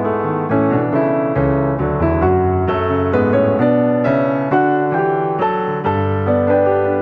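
Background piano music, notes struck every half second or so over sustained chords.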